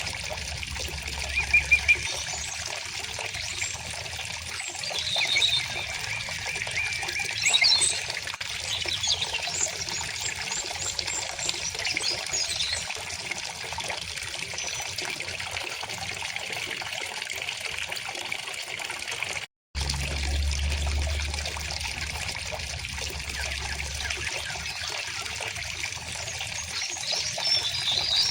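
River water trickling and flowing steadily, with small birds chirping and trilling in short phrases every few seconds. The sound cuts out for a split second about two-thirds of the way through.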